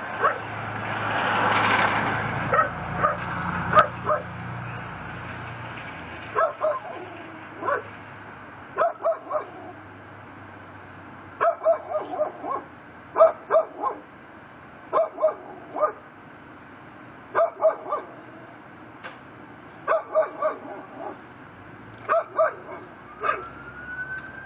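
Pit bull barking over and over in short clusters of two to four barks. A passing vehicle's rush of noise swells and fades in the first few seconds, and a siren begins to rise near the end.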